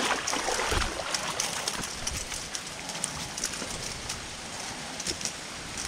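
Steady rain falling, with many scattered sharp ticks of drops, a little louder in the first second.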